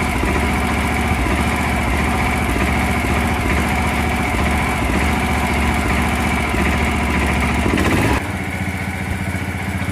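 Maeda MC-205C mini crawler crane's engine running steadily under radio-remote throttle control. About 8 seconds in, it drops suddenly to a quieter, lower running sound.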